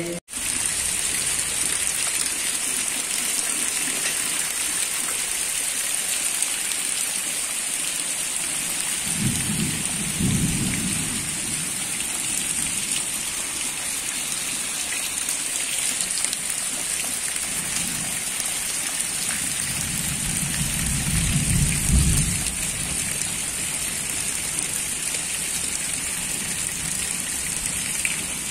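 Heavy rain falling steadily on wet ground and puddles, with a low rumble of thunder about nine seconds in and a second, louder roll around twenty seconds in.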